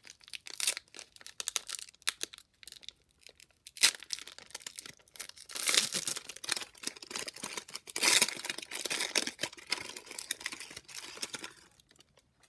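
Wrapper of a 2020 Score football trading-card fat pack being torn open and crinkled by hand, in irregular crackling bursts that are loudest around the middle and again from about eight seconds in, with one sharp snap about four seconds in.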